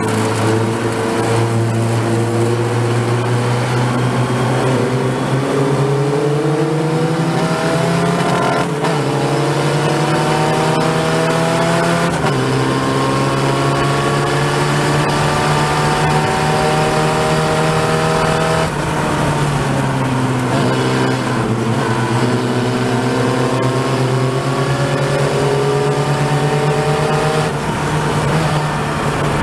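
Open-wheel formula race car's engine heard from onboard at racing speed, its pitch climbing through the revs and dropping sharply at each gear change. About two-thirds of the way through it falls away for braking and downshifts, then climbs again.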